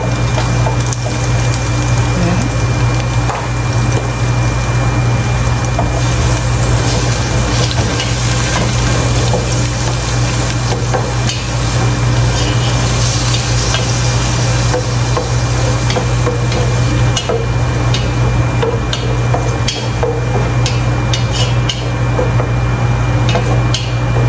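Wooden spatula stirring garlic and onion sautéing in a little oil in a pot, with scattered clicks and scrapes of the spatula against the pot, over a steady low hum.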